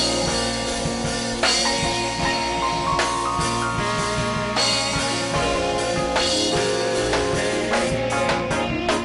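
Live worship band music with a drum kit keeping a steady beat under held keyboard or instrument chords.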